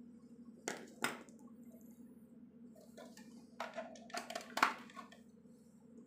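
Clicks and scrapes of hands handling a small bench wiring setup, including a two-pin plug pushed into a power strip socket. Two sharp clicks come about a second in, then a quicker run of clicks and scrapes around four to five seconds.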